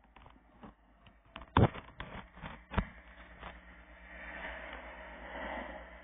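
Knocks, taps and rubbing from a handheld phone being moved about, with two loud thumps about a second and a half and nearly three seconds in. A rushing noise swells near the end.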